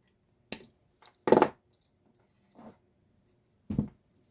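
Metal parts and hand tools knocking and clattering as the motor is worked off a Genie screw-drive garage door opener: four separate knocks, the second the loudest.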